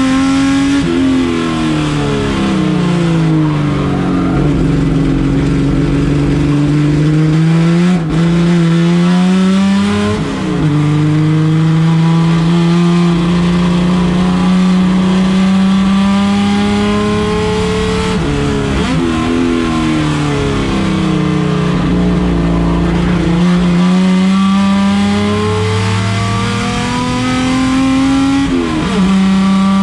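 Race car engine running hard under load. Its pitch climbs steadily and drops sharply several times as it changes gear or lifts off, then climbs again.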